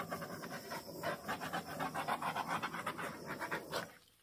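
Handheld butane torch flame running with a fast-pulsing hiss while it is swept over wet acrylic paint to pop air bubbles; it cuts off just before the end.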